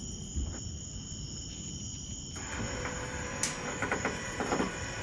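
Crickets chirring steadily and high. About halfway in, a rustling rises and a quick run of knocks and clatters follows, from items being handled at the open back of a vehicle.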